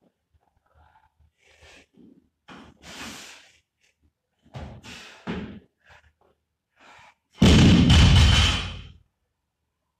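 Loaded barbell with bumper plates dropped onto the gym floor about seven seconds in, a loud crash with rattling that dies away over about a second and a half. Before it, the lifter's hard breaths and grunts during the lift.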